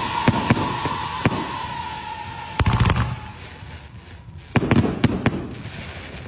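Firecrackers going off: scattered sharp bangs, with two louder clusters about three and five seconds in, over a hiss and a steady whistle that fades out about three seconds in.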